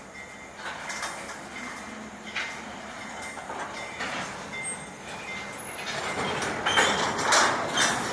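Freight train moving on the track, wheels and cars clanking and rattling, growing louder toward the end.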